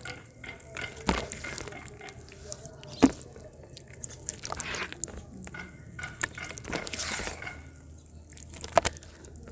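Hands squeezing and lifting thick, wet mud slurry: irregular squelches and splats as the mud oozes through the fingers and drips back into the mass. The sharpest splats come about a second in, about three seconds in, and near the end.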